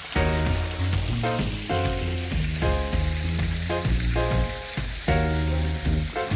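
Background music, melodic notes over a bass line, with a steady sizzling hiss, like rain or crackle, running underneath.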